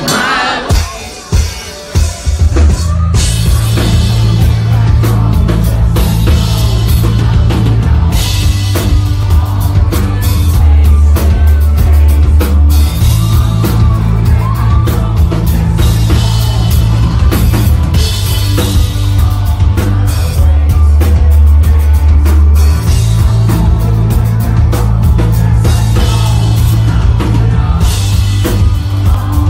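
Live rock band playing loud: drum kit, bass and guitar. A few separate drum hits with short breaks open it, then the full band comes in about two seconds in, with heavy low bass notes shifting every few seconds.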